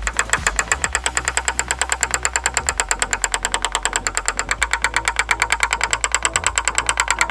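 Quick, evenly spaced light taps of a paintless-dent-repair knockdown tool and hammer on the roof panel of a 2019 Infiniti Q60, each with a short metallic ring. This is knockdown and blending work, tapping down the high spots left around the pulled dent.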